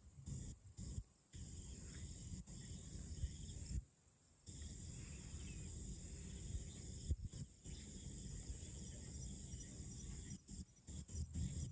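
Crickets and other insects chirring in a steady evening chorus over a low, uneven rumbling noise; the sound drops out briefly about four seconds in.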